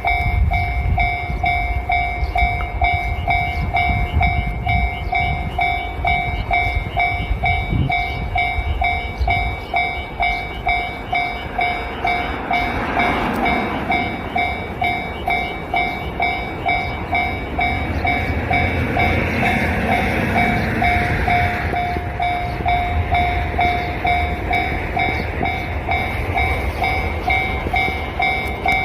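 Japanese railway level crossing warning bell ringing in a steady, evenly repeating pattern, with a train passing over the crossing midway.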